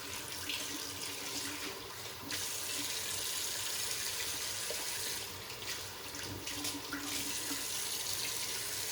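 Cold water running from a tap into a sink while the face is rinsed of shaving lather, the flow changing briefly a few times as hands catch the stream.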